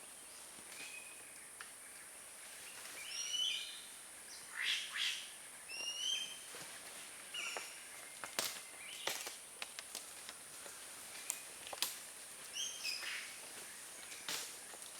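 Forest birds calling: short, repeated chirping notes that come every second or so from about three seconds in. Under them runs a steady high hiss, with a few sharp clicks and rustles.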